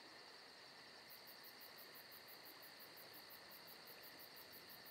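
Near silence: a faint steady hiss with a faint high whine, and from about a second in a faint, very high pulsing at about five beats a second.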